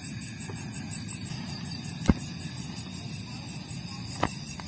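Steady night chorus of crickets and insects, with two sharp pops, about two seconds and four seconds in.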